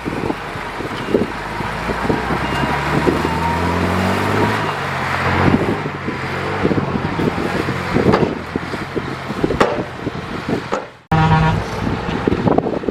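Heavy diesel earthmoving machine's engine running under load, its note shifting between about two and five seconds in, with scattered metallic knocks. The sound cuts off abruptly about eleven seconds in and then resumes.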